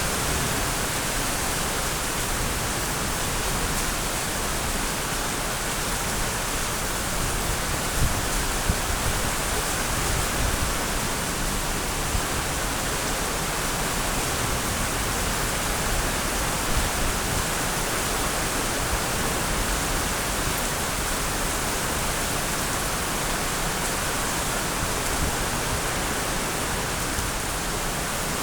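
Steady rain falling, an even hiss that holds constant, with a couple of brief louder ticks about eight seconds in.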